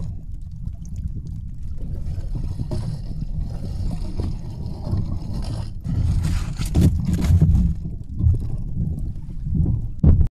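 Low, uneven rumble of wind and water around a small wooden fishing boat, with brief rustling and scraping of gear being handled about six to seven seconds in.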